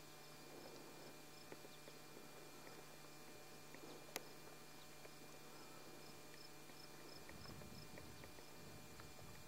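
Near silence: faint outdoor ambience with an insect chirping in a faint, even rhythm of about two or three chirps a second. A single sharp click about four seconds in is the loudest sound.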